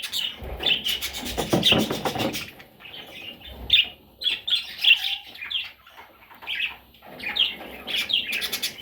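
Budgerigars chirping in short, repeated calls, with a quick fluttering rattle about a second in.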